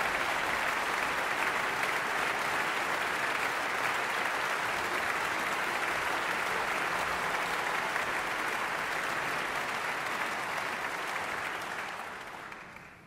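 Large concert audience applauding steadily, the applause fading away over the last second or so.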